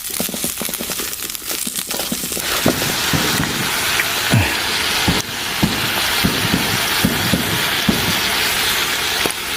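Oil crackling in a pan, then, about two and a half seconds in, a steady loud sizzle as peas are stir-fried in the hot oil, with repeated short strokes underneath.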